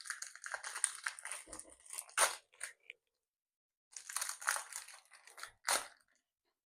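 Foil wrapper of a Pokémon Silver Tempest booster pack crinkling and tearing as it is opened by hand, with a pause and two sharper rips, one about two seconds in and one near the end.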